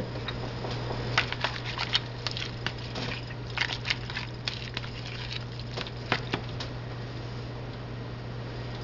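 A spoon stirring a wet mix of corn kernels and egg in a bowl: irregular clicks and knocks against the bowl, thinning out near the end, over a steady low hum.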